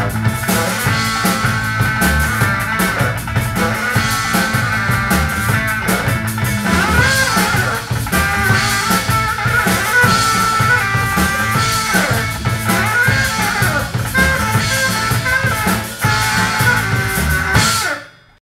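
Live jazz-rock band: a saxophone plays the melody over a hollow-body electric guitar and a drum kit keeping a steady beat. The music stops abruptly near the end.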